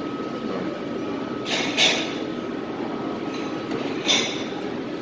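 Steady background noise of a busy buffet restaurant, with a few short clatters about a second and a half in, just before two seconds, and about four seconds in.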